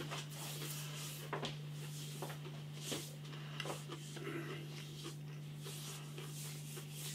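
Quiet room tone with a steady low hum, broken by a few faint, soft clicks and rustles.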